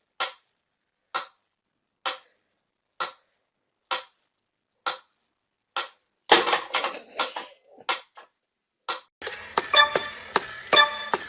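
Steady ticking, evenly spaced at about one tick a second, like a clock. About six seconds in it gives way to a rattling clatter, then near the end to a faster run of clicks with a faint ringing.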